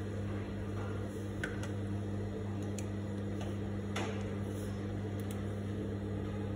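Juki industrial sewing machine's motor humming steadily, with a few light clicks scattered through.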